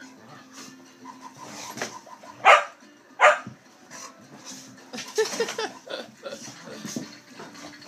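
Two dogs play-fighting. Two loud barks come about two and a half and three and a quarter seconds in, followed by a flurry of shorter vocal sounds around five seconds.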